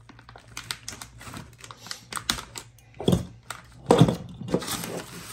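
Sealed plastic bag of steel punches being handled and picked at with a serrated knife: crinkling plastic and the small clicks of the punches knocking together, with two louder bumps about three and four seconds in.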